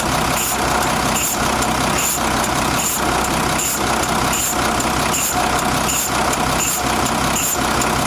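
A Nissan FE6 truck's inline-six diesel engine idles steadily. Over it, a short hiss repeats a little more than once a second as the clutch pedal is pumped to bleed the freshly rebuilt clutch booster.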